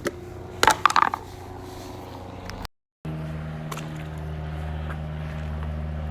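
A container lid is opened with a few sharp clatters about a second in. After a brief cut, a pool pump motor hums steadily.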